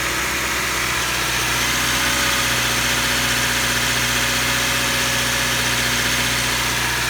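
2013 Subaru Impreza's flat-four engine idling steadily, now running after its unplugged crank position sensor was reconnected.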